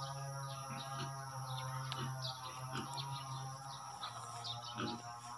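Birds chirping in short scattered calls over a steady insect drone. A low steady hum of unknown source runs beneath them.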